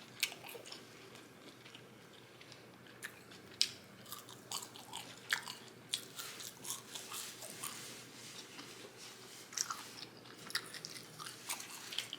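A person chewing and biting food, with irregular sharp crunches.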